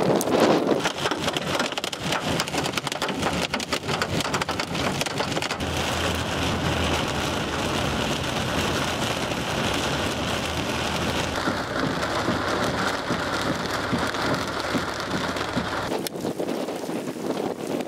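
Thunderstorm precipitation beating down in a dense, steady patter of countless small impacts. The low rumble under it drops away near the end.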